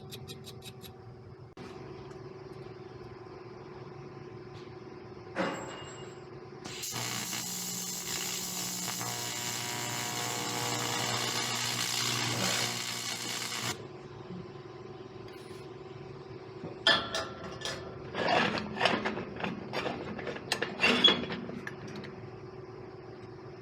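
Metalworking on a motorcycle radiator bracket being readied for TIG welding: a click, then a steady hiss for about seven seconds, then a run of quick scraping strokes as oxidation is cleaned off the metal.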